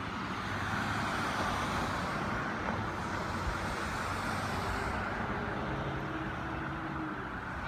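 Steady rushing outdoor background noise with a low hum underneath.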